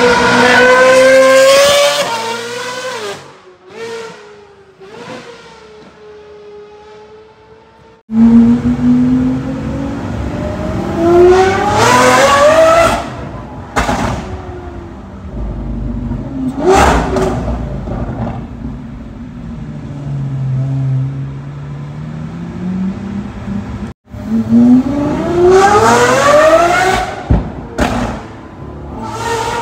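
A sports car engine accelerating hard several times, its pitch climbing steeply through the revs, then falling away and fading. The sound cuts off abruptly twice.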